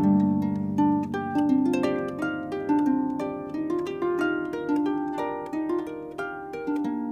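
Pedal harp playing a quick stream of plucked notes, several a second, each left ringing. This is an instrumental passage of a harp-and-voice song, with no singing.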